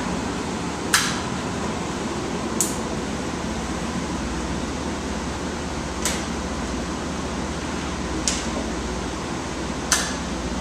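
Steady mechanical drone on the bridge of an offshore supply boat under way, from its engines and ventilation, with five short sharp clicks spaced irregularly through it, the first the loudest.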